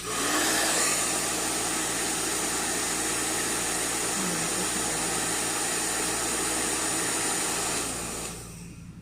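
NV-899 Nova blow dryer switched on at its speed setting 2, its motor spinning up with a brief rising whine and then running with a steady loud rush of air; about eight seconds in it is switched off and winds down.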